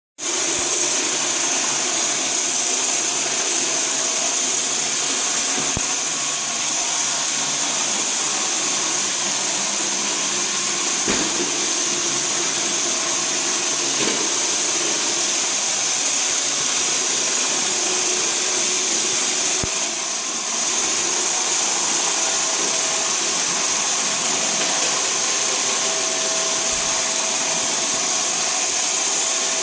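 bObsweep robotic vacuum cleaner running steadily, its motor and suction giving a continuous high-pitched whooshing hum. There are a couple of brief knocks, and the level dips briefly about twenty seconds in.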